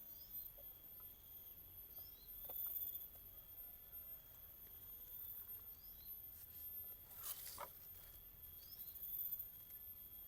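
Faint outdoor background: a steady high-pitched drone with a few short chirps and small clicks, and a brief rustle about seven seconds in.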